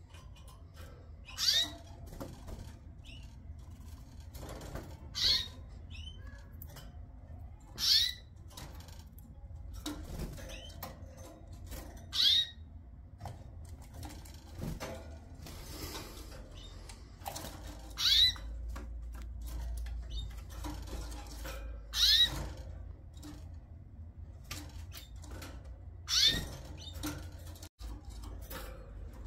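Canaries chirping: short single calls with a quick bend in pitch, repeated every few seconds, seven loud ones with fainter calls between.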